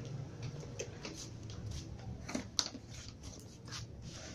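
Cats eating dry kibble from plastic feeding trays: irregular small crunches and clicks, the sharpest about two and a half seconds in, over a low steady background rumble.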